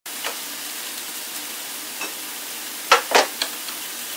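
Chicken breasts searing in a cast iron skillet, a steady frying sizzle with a few sharp clicks about three seconds in.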